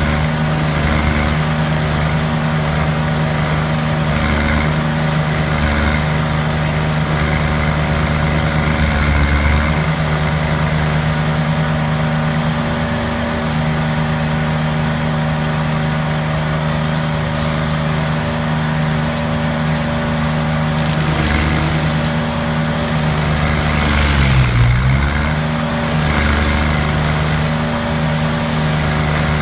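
Stump grinder's engine running steadily at high speed while its cutter wheel grinds into a tree stump. The engine note dips briefly about ten seconds in, then drops more deeply and recovers a few seconds before the end, as the engine bogs under the load of the cut.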